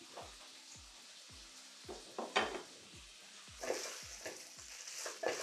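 Diced chicken breast sizzling quietly in a nonstick pan on the lowest heat. From about two seconds in, a spatula stirs and scrapes the pieces in several strokes.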